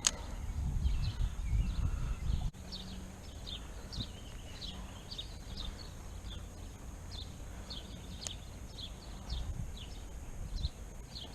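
A bird chirping over and over, short high chirps two or three a second, with a low rumble of wind or handling on the microphone that is stronger in the first couple of seconds.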